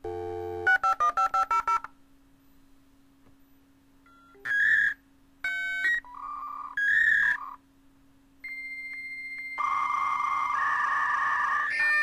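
Dial-up modem connecting. A dial tone gives way to a quick run of about eight touch-tone digits. After a pause come short beeping tone bursts from about four and a half seconds in, then a steady high tone, and from near ten seconds a harsh hissing handshake screech.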